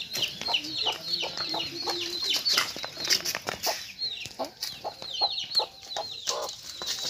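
A mother hen clucking among her chicks, which peep over and over in short, high calls that fall in pitch, several a second.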